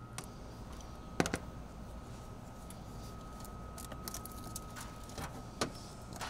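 Faint clicks and knocks of hands working on battery terminal hardware under a pickup's hood, the loudest knock about a second in and another near the end, over a quiet shop hum with a thin steady high tone.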